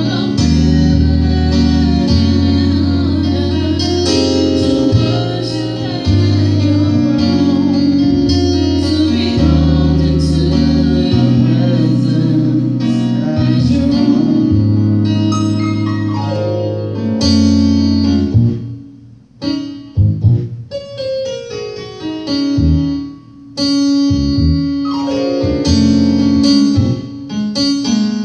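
Electric keyboard playing full, sustained chords under a woman singing a worship song into a microphone. About eighteen seconds in, the playing thins to sparse chords with short pauses between them.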